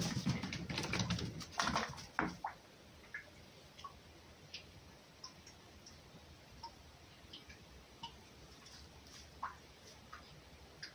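Scuffling and rustling in dry straw as a red fox and a kitten play-fight, loud and busy for about the first two seconds, then only scattered faint ticks and rustles as the animals move about more quietly.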